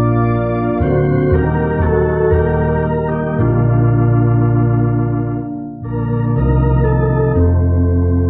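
Organ playing sustained chords, changing every second or so, with a short break between phrases about six seconds in.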